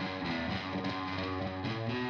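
Background music led by distorted electric guitar chords.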